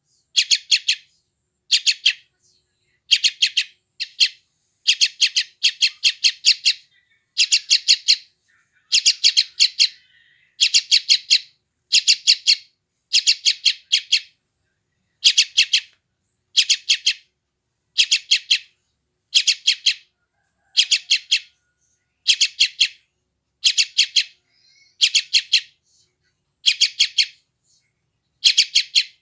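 Yellow-vented bulbul chick calling: short bursts of rapid, high chirps, repeated about once a second in a steady rhythm, with a brief pause near the end.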